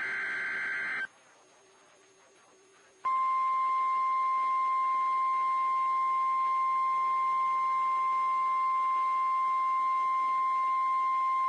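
NOAA Weather Radio emergency alert signal: the last burst of the SAME digital header ends about a second in. After a two-second gap, the steady single-pitch 1050 Hz warning alarm tone sounds, which announces that a warning is about to be read.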